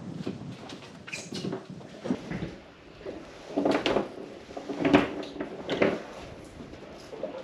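Irregular knocks and rustles from hands rigging a fishing handline with a new sinker, with a few louder knocks about four and five seconds in.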